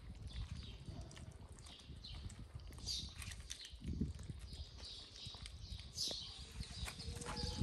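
Several kittens crunching and chewing dry cat kibble from plastic trays: a dense run of small irregular crunching clicks, with short high chirps every second or so.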